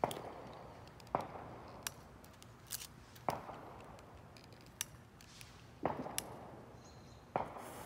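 Butane utility lighter's piezo igniter clicking about nine times at uneven intervals, some clicks followed by a brief hiss, as it is held to a firework's fuse that has not yet lit.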